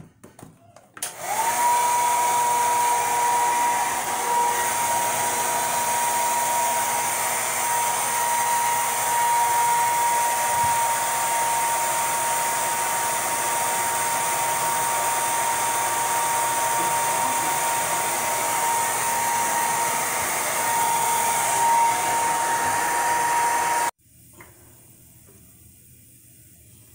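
Handheld hair dryer switched on about a second in, running steadily with a whine over the rush of air, then switched off suddenly near the end.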